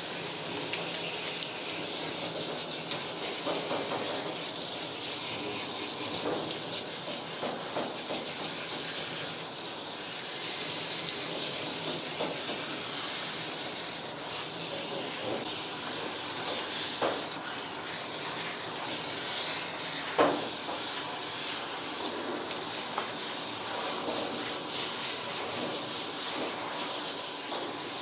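Water spraying steadily from a bathing hose sprayer onto a dog's wet coat, with a few brief knocks.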